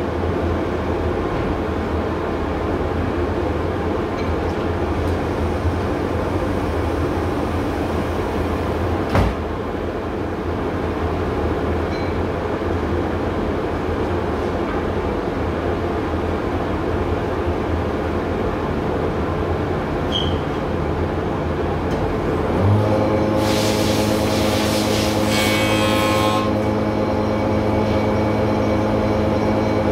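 Bag-type workshop dust extractor running steadily, with a single knock about nine seconds in. About 23 seconds in a second motor starts and hums steadily on top, with a few seconds of high hissing just after it comes on.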